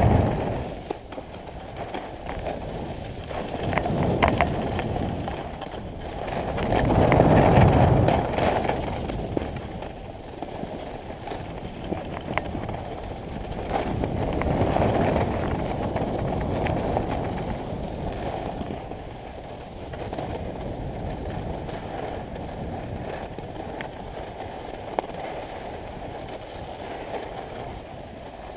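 Skis sliding and scraping over groomed snow, with wind rushing over the camera microphone, swelling and fading in waves with the turns, loudest about seven seconds in.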